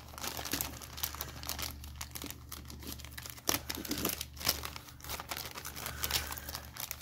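Clear plastic bag crinkling and rustling in irregular bursts as it is handled and its contents are sorted through by hand.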